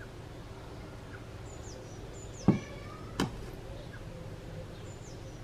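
Two sharp knocks of a metal serving spoon against the dish or pan while custard is spooned out, the first about two and a half seconds in and a lighter one just under a second later. Faint short bird chirps sound now and then over a low steady background hum.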